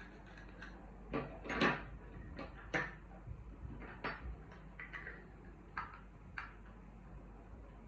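A series of about ten short knocks, clicks and scrapes of small hard objects being handled, the loudest and longest about one and a half seconds in, with another sharp one near three seconds.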